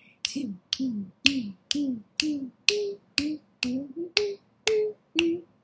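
Finger snaps keeping a steady beat, about two a second, each snap paired with a short low note that steps up and down in pitch like a walking bass line.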